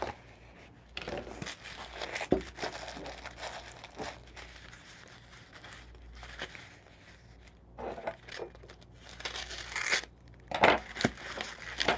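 Corrugated cardboard and paper packaging rustling and crinkling on and off as hands unwrap a ceramic cup.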